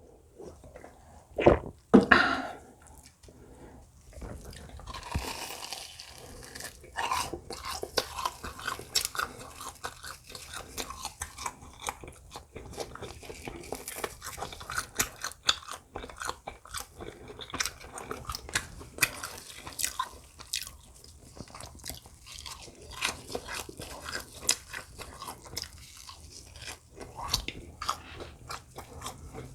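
A person eating close to the microphone: moist, crunchy chewing and biting with many small irregular crackles. Two louder sounds come about one and a half to two seconds in.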